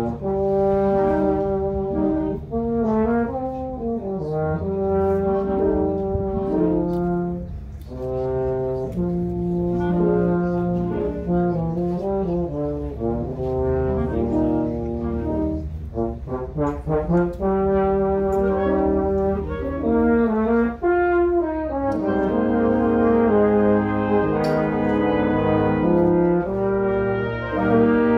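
Concert band playing, with brass, clarinets and saxophones over a tuba bass line.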